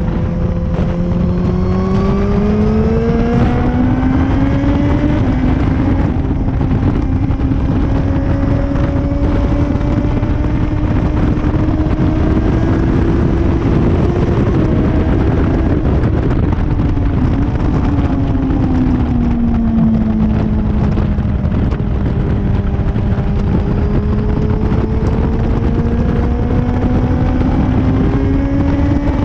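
Motorcycle engine heard onboard during a track lap under heavy wind rush. The engine note climbs over the first few seconds and holds high, drops away around the middle as the bike slows, then climbs steadily again.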